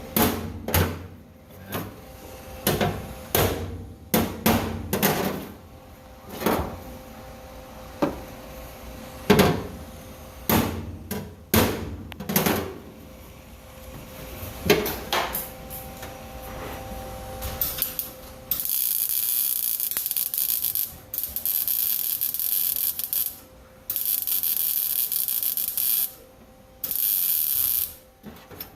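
A hammer striking the sheet-steel floor pan about twenty times at irregular intervals, each blow ringing briefly, to work out a dip in the metal. About two-thirds of the way in, a MIG welder starts laying short weld runs: four steady, hissing stretches of two to three seconds each, with short pauses between.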